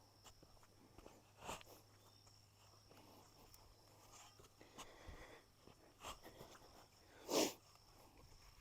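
A digging tool biting and scraping into dry, hard soil. It comes in a few short crunches, the loudest near the end.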